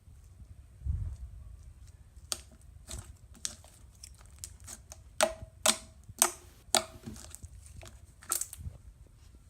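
Slime being worked by hand, giving a run of sharp clicks and pops, loudest and closest together about halfway through, after a soft low thump about a second in.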